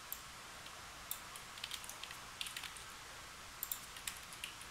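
Faint, scattered clicks of a computer keyboard and mouse as code is edited, a dozen or so irregular taps over a low steady hum.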